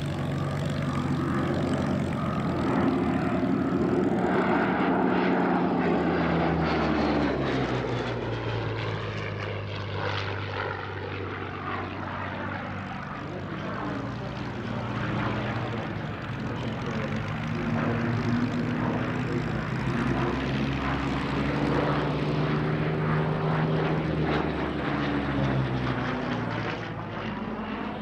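Single-engine piston propeller aircraft flying overhead, its engine note sliding down in pitch as it passes about eight seconds in, then rising and growing louder again from about sixteen seconds before falling away near the end.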